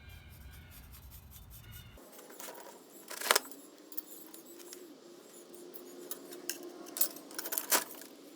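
A few sharp metallic clinks and clatters, the loudest about three seconds in and a cluster near the end, over a faint steady hum.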